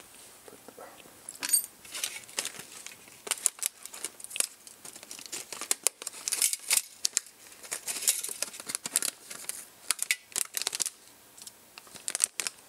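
Anti-static plastic parts bag being crinkled and torn open, with a run of crackling and small sharp clicks as it is handled.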